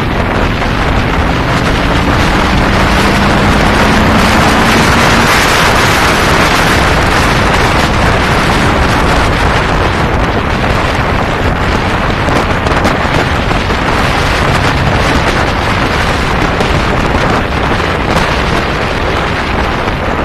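Heavy wind rushing over the microphone of a cruiser motorcycle riding at road speed, with the motorcycle's engine running underneath. The engine note rises slightly in the first few seconds as the bike speeds up, then is buried in the wind.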